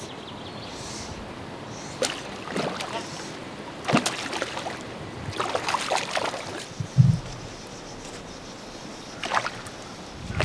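Hooked rainbow trout splashing at the surface as it is played in toward the dock on a fly rod: scattered short splashes over a steady background hiss, with one low thump about seven seconds in.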